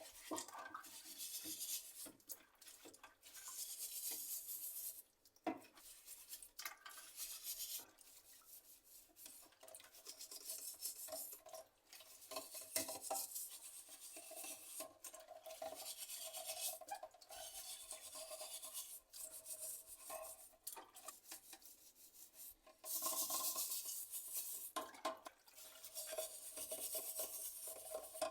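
ICL keyboard parts being scrubbed clean by hand, in repeated stretches of rubbing and scraping, with scattered light clicks and clatter of hard parts knocking together.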